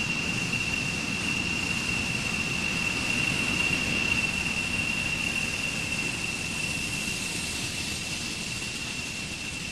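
Steady machine noise: a constant high whine over an even hiss, with no change in pitch.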